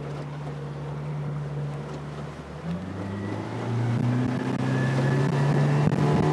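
Yamaha F60 four-stroke outboard throttling up as the boat gets under way: a steady engine note at first, then climbing in pitch and growing louder from about three seconds in.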